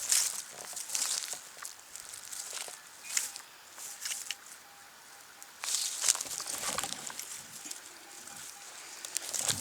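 Crackling and scuffing of dry leaf litter and soil being disturbed, in separate bursts every second or two. A faint steady tone sounds in the middle.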